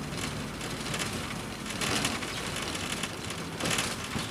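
Cabin noise inside a moving Volkswagen Voyage: a low engine hum under road and tyre noise, with louder swells of bumping from the potholed street about two seconds in and near the end. The engine is cold, which the driver says is why it keeps flooding.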